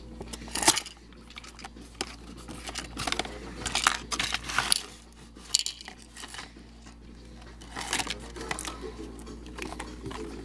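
Sylvanian Families toy set being unboxed by hand: scattered rustling, crinkling and small clicks of plastic packaging and tiny pieces being handled.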